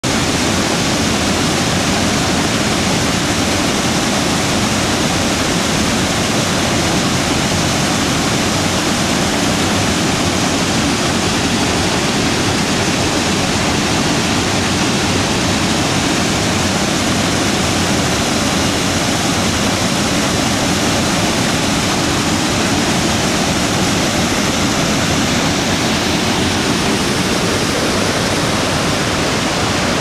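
Small waterfall pouring into a rocky pool and running off as a shallow cascading stream: a steady, loud rush of falling water.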